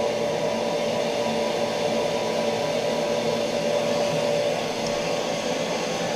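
Defender commercial reverse osmosis system's high-pressure pump running, a steady hum with a constant whine, as the throttle valve is turned in to raise the system pressure.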